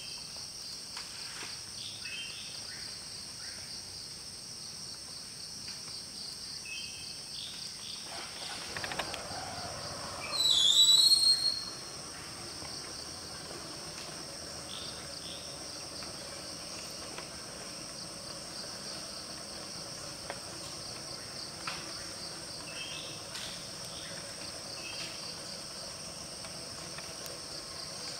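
Steady, continuous high-pitched insect chorus with scattered short chirps. About ten seconds in, a much louder call sweeps in pitch for a couple of seconds, then the insect chorus carries on alone.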